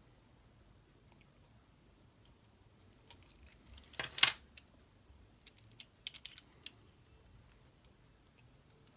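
Light clicks and a brief clatter of small die-cast and plastic toy-car parts being handled, the loudest clatter about four seconds in and a quick run of light clicks around six seconds.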